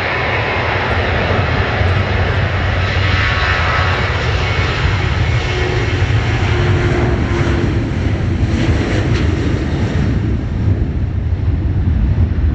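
Airliner's engines heard loud and close as the aircraft passes on or over the runway, a steady rumble whose higher part fades after about ten seconds.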